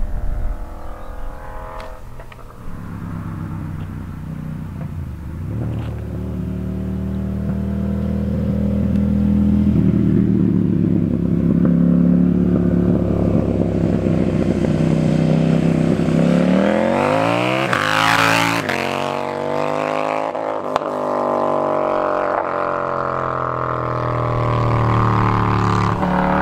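KTM Duke 790/890 parallel-twin motorcycle with an Austin Racing RS22 de-cat underseat exhaust, loud and growing louder as it approaches. It revs up sharply as it passes, about two-thirds of the way in, then pulls away with its pitch climbing and dropping at each gear change.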